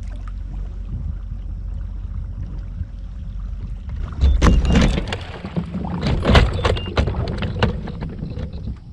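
Kayak hull scraping over a shallow, rocky bottom as it runs aground, in two loud bouts starting about four and about six seconds in, over a steady low rumble.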